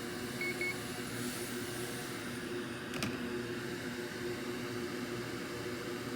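Steady fan whir of a microsoldering fume extractor, with a low steady hum under it. Two short high beeps come in quick succession about half a second in, and a single sharp click about three seconds in.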